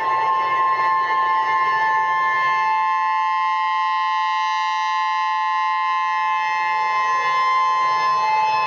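Emergency alert attention tone: a loud, steady two-tone electronic alarm held without a break.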